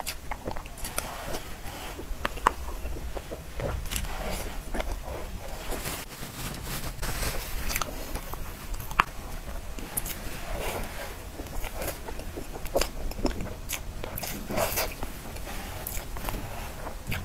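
Metal spoon scraping and clicking against a clear plastic cake box, with soft, wet chewing of a moist strawberry cream cake. The sharp clicks recur all through, two louder ones standing out.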